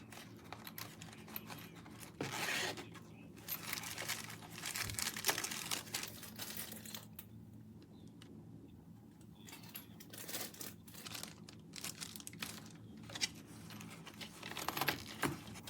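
Packaging being handled: irregular crinkling and tearing rustles, with a few sharper clicks near the end.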